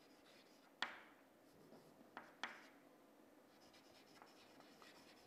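Chalk writing faintly on a chalkboard: a few sharp taps of the chalk, the loudest about a second in, then light scratching strokes near the end.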